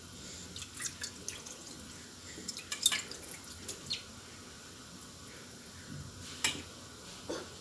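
Hands rubbing and pulling apart damp steamed vermicelli on a clay plate: irregular small wet clicks and crackles, the loudest about three seconds in.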